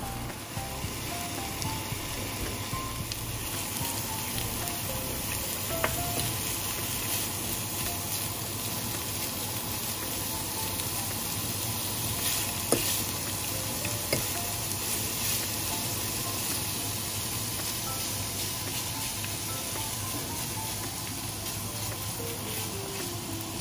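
Minced meat and chopped onions sizzling steadily in a hot non-stick frying pan, with a few sharp clicks of the fork and wooden spoon against the pan as the meat is broken up. A faint melody plays underneath.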